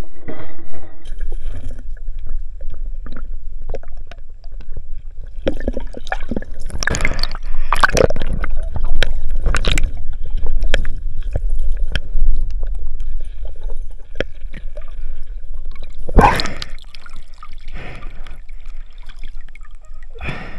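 Water gurgling and sloshing, heard through an underwater camera housing while diving, over a steady low rumble. Repeated sharp knocks and clatters come through it, thickest in the middle and with one loud knock about three-quarters of the way through.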